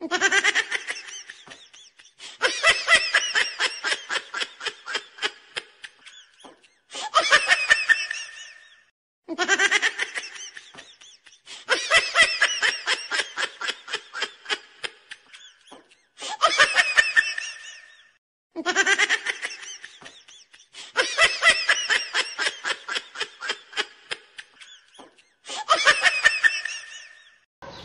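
Laughter sound effect played over and over: about nine bursts of rapid ha-ha-ha laughing, each about two seconds long and trailing off, with short silent gaps between them.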